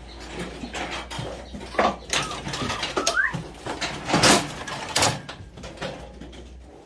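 Knocks and clatter of a cattle-handling chute, scale and gates as Nelore steers are moved through one at a time, with a louder bang a little past four seconds in and a few short squeaks.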